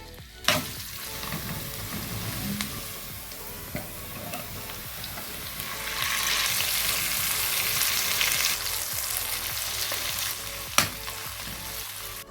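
Pieces of katla fish sizzling as they fry in hot oil in a pan, the sizzle growing louder about halfway through. Two sharp knocks, one near the start and one near the end.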